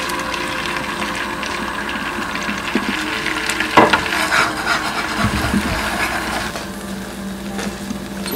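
Beaten egg sizzling in a rectangular rolled-omelette pan while it is poured in and rolled up, with a wooden spatula scraping and knocking against the pan; the loudest knock comes about four seconds in.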